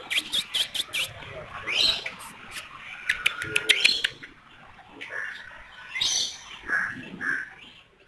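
Aviary birds chirping and squawking: quick runs of sharp, high chirps with short gliding calls, thinning out after about four seconds to a few scattered louder calls.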